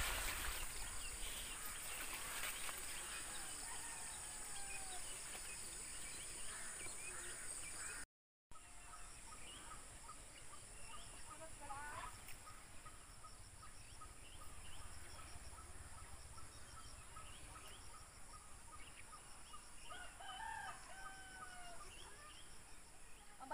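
Rural field ambience: a rooster crowing, once about halfway and again near the end, over a steady high-pitched insect drone. The sound drops out for a moment about a third of the way in.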